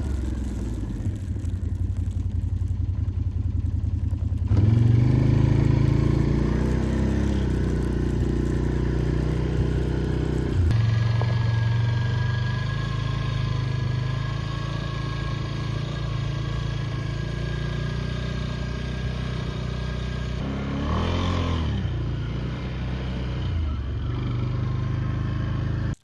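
Can-Am ATV engine running steadily while riding. Its note jumps abruptly about 4 and 11 seconds in, and the engine speed briefly rises and falls about 21 seconds in.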